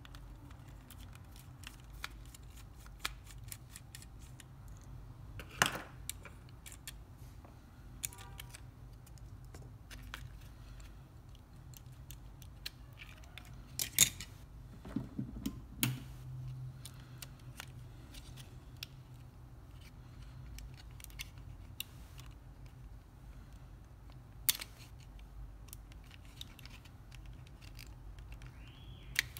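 Small clicks, taps and knocks of plastic parts and a small screwdriver as a PlayStation 4 controller is taken apart and its circuit board is lifted and handled, with sharper knocks about six, fourteen and twenty-four seconds in. A low steady hum runs underneath.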